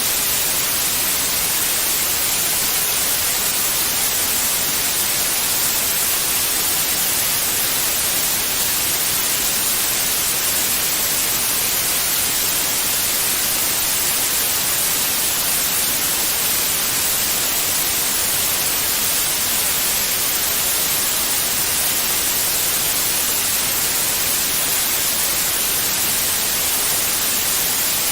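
Steady white noise: an even hiss, heaviest in the treble, with no change in level.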